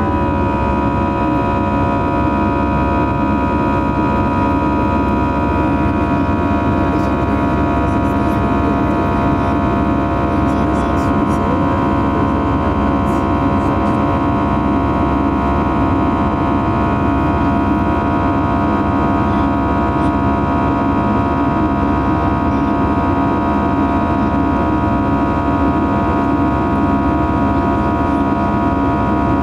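Cabin sound of an Airbus A320 in its initial climb: a steady jet-engine drone with many held fan tones over a dense rush of airflow. The tones drop slightly in pitch right at the start, then hold steady.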